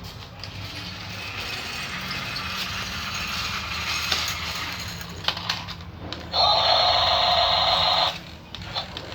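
Remote-control toy excavator's electric motors and plastic gears whirring as it tries and fails to climb a dirt ramp. The whir grows steadily louder, jumps to a loud, harsher whir about six seconds in, and cuts off after about two seconds.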